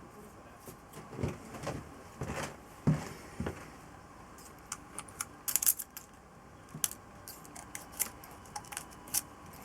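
Hand tools and small metal engine parts being handled, giving irregular clinks and knocks. There are a few duller knocks in the first half, then quicker, lighter metallic clicks, bunched about halfway through.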